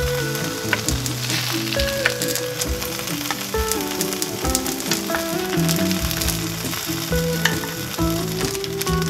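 Background music: a melody moving in steps over a steady beat, with a fine crackling layer running under it.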